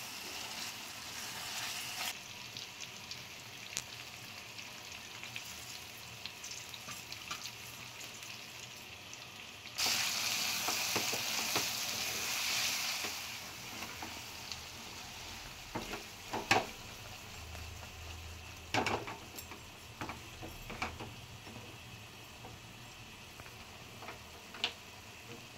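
Chicken gizzard curry sizzling in a frying pan as a spatula stirs it. The sizzling and scraping grow louder for a few seconds about ten seconds in, and later there are a few sharp taps of the spatula against the pan.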